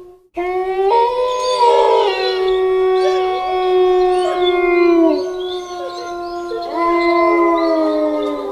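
A pack of wolves howling together: long, held howls at different pitches overlapping. The sound cuts out briefly at the start, a higher howl joins about a second in, the low howl drops in pitch about five seconds in, and another howl rises in near seven seconds.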